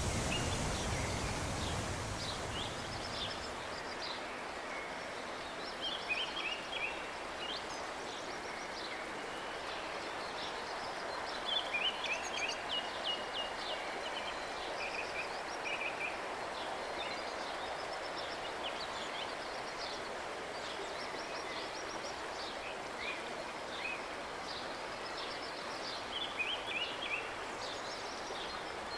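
Outdoor river ambience: a steady hiss of flowing water, with songbirds chirping in short, quick trills now and then.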